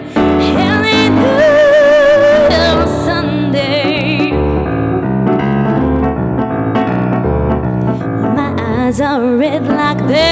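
A woman singing with wide vibrato to an electric keyboard playing piano-style chords and bass. She holds one long note a little over a second in.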